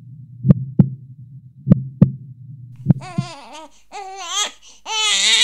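A slow heartbeat, three double thumps over a low hum, then from about three seconds in a newborn baby crying in three rising and falling cries, the last one the loudest.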